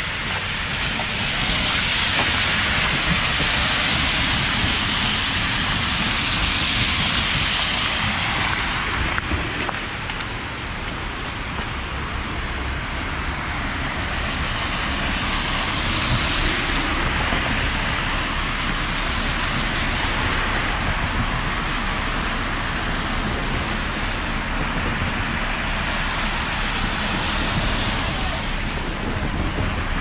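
Downtown traffic on wet, slushy streets: a steady hiss of tyres on wet pavement that swells several times as cars pass.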